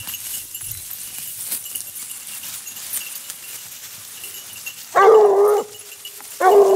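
Basset bleu de Gascogne hounds giving tongue: two long, drawn-out bays about a second apart, starting about five seconds in, typical of scent hounds on a hare's line. Before the bays there is a light rustling and crackling of dry leaf litter.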